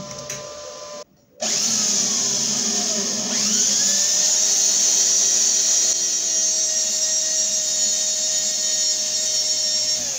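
Corded electric hand drill boring into a steel bolt clamped in a vise, a loud steady high-pitched drilling noise with a whining tone. It starts about a second and a half in, after a brief steady hum and a short break.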